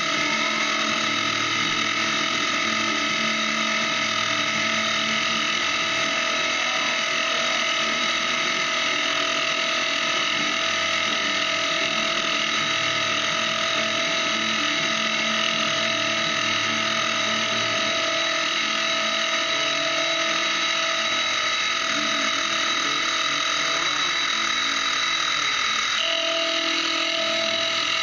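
Benchtop milling machine running, its end mill cutting into knife bolsters: a steady motor and spindle whine with cutting noise, the tone shifting slightly near the end.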